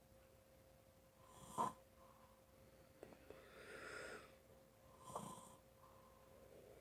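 Snoring and loud breathing in sleep: a short snort about a second and a half in, a longer breathy breath around four seconds, and another short snort just after five seconds.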